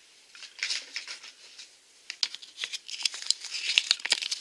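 Folded paper collector's checklist from a toy blind bag being unfolded and handled: irregular rustling and crinkling of paper with light clicks, starting about half a second in and busier again near the end.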